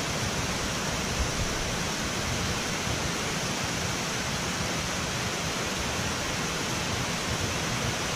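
Steady rush of water pouring through a dam's spillway gates.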